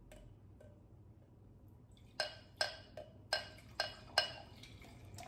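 Wine glugging out of a glass bottle into a stemless glass: six short glugs, a little under half a second apart, starting about two seconds in.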